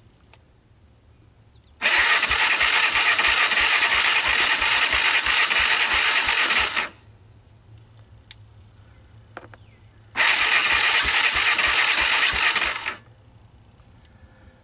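1998 Honda TRX300EX's single-cylinder engine cranked over by its electric starter in two runs, about five seconds and then about three, with an even low beat under the starter's whir and no firing. The engine has low compression, which the owner puts down to an intake valve not seating.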